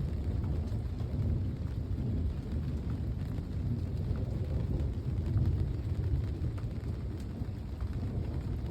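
Low, continuous rumble of distant thunder during a thunderstorm, swelling a little about five seconds in, with faint scattered ticks.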